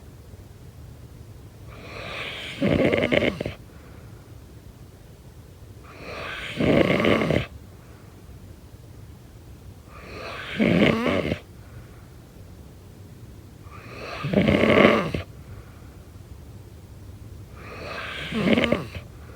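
Snoring in sleep: five snores about four seconds apart, each swelling and then peaking for about a second.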